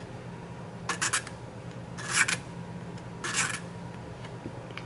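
Three strokes of a Nicholson 00 hand file rasping across a vulcanite pipe stem, about a second apart. The file is flattening the tooth-compressed bite area by the button.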